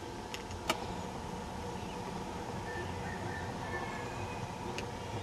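Steady outdoor background noise with a low hum, broken by one sharp click less than a second in.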